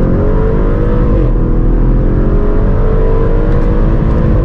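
Audi RS6's twin-turbocharged engine under full-throttle acceleration, heard from inside the cabin, on the stock exhaust with its centre resonator still fitted. The revs climb, drop sharply at an upshift about a second in, then climb steadily again until the next shift right at the end.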